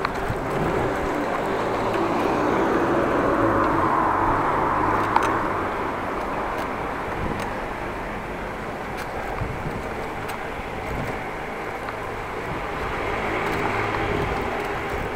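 Street traffic heard from a moving bicycle: cars passing nearby, swelling a few seconds in and again near the end, over a steady low rumble of wind on the action camera's microphone.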